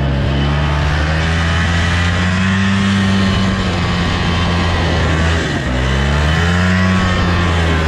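ATV engine running as the four-wheeler is ridden, its pitch rising and falling with the throttle, with a clear dip about five and a half seconds in before it climbs again.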